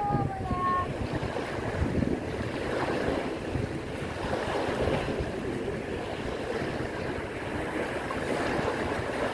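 Small sea waves breaking and washing in over a shallow stony shore, with wind buffeting the microphone.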